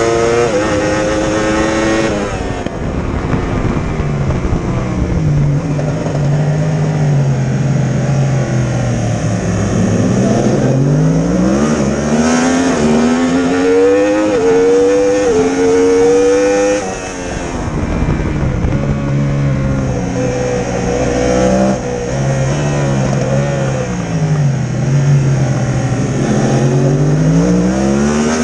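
Racing motorcycle engine heard from on board at race pace, revving hard through the gears, then shutting off and downshifting for corners, so its pitch climbs and drops several times. It falls to a low, steady rev in first gear and picks up again as the bike accelerates out.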